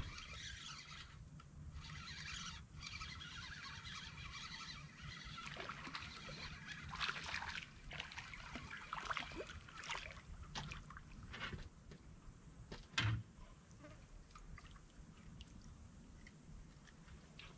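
A hooked bullhead catfish splashing and thrashing at the water surface as it is reeled in and lifted out. There is a single low thump about 13 seconds in.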